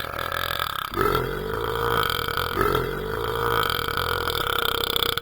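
A dog burping over and over in long, drawn-out belches that run one into the next, with new burps starting about a second in and again about halfway through.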